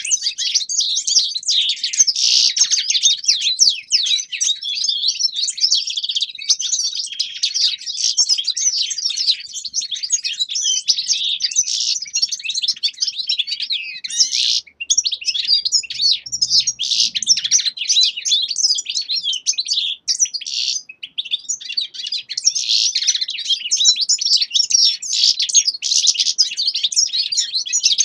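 Several caged finches, among them European goldfinches, singing together: a dense, fast, high twittering with a couple of brief breaks past the middle.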